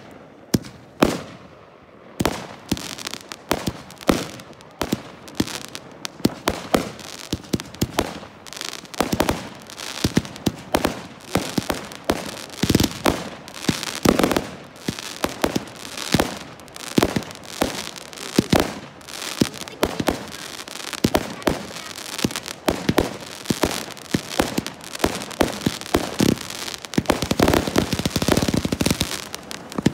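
Fireworks display: aerial shells bursting one after another with crackling, a few separate bangs at first, then a rapid, dense run of them from about two seconds in.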